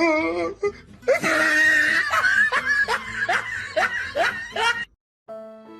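A wavering vocal cry, then a person laughing in quick repeated bursts for about four seconds, cut off suddenly. Slow violin music starts near the end.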